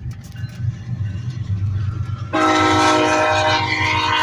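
Low rumble of a moving car, then about halfway through a freight locomotive's air horn starts suddenly and holds a loud chord of several notes, heard through an open car window.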